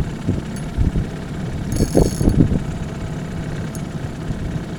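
Boat engine running steadily at low revs for trolling, with a few dull thumps and a brief high buzz about two seconds in.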